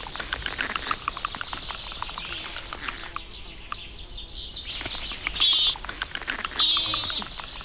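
Barbary macaque infant giving short, high-pitched squealing calls, twice in the second half, the loudest sounds here. Before them comes a light crackle of small clicks and rustles.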